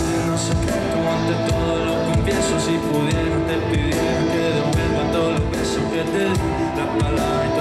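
Live pop concert music heard from the audience through the venue's sound system: a band passage of held chords over drums.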